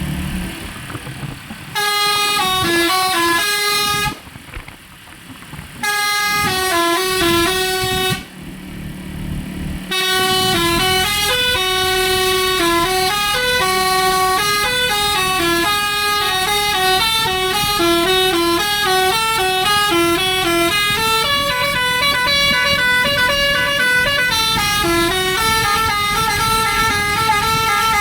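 Bus "telolet basuri" multi-tone air horn playing a melody in stepped notes: two short phrases with quieter noise between them, then a long unbroken tune from about ten seconds in.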